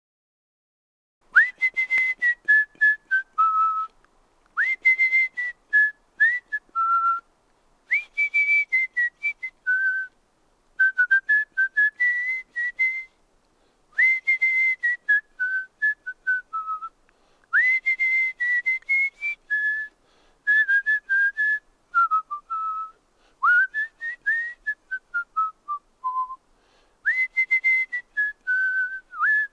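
A person whistling a melody in a pure, high tone. It is a string of short phrases with brief pauses between them. Most phrases start with a quick upward swoop to a high note, then step down through several shorter notes. The whistling starts about a second in.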